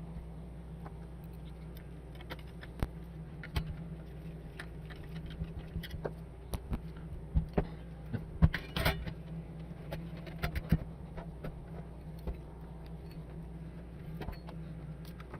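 Scattered small clicks, taps and light metallic knocks of screws and case parts being handled and fitted as a bench power supply's housing is reassembled, busiest in the middle with the sharpest knock about halfway through, over a steady low hum.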